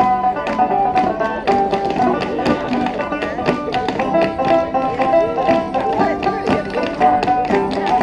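Folk band of banjo, fiddle and mandolin playing a lively dance tune, with the clatter of clogs striking a wooden dance board in time with the music.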